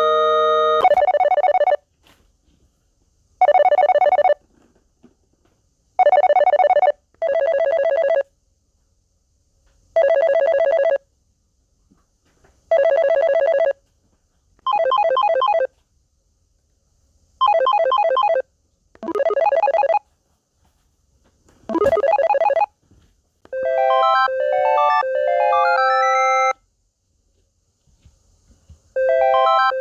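A series of different telephone ringtone sound effects. First come short electronic rings of about a second each, separated by pauses; some warble and some sweep in pitch. These are followed by a short melodic ringtone tune, which starts again just before the end.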